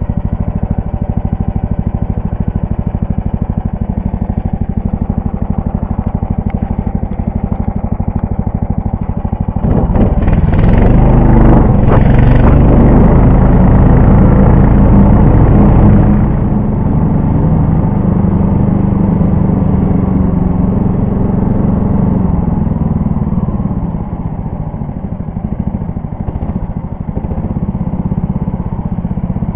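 Small engine of a Lider 3 motorized tow sled running with a fast, even firing rhythm. It is revved louder for about six seconds roughly a third of the way in, then settles back to a steady run.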